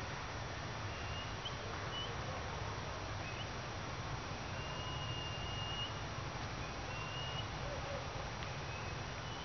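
Outdoor forest ambience: a steady low rumble and hiss with a few short, thin, high bird chirps, one held as a longer whistle about five seconds in.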